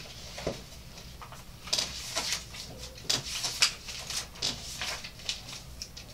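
Irregular short clicks and rustles of handling: a music stand and brass instruments being adjusted and picked up, with no playing.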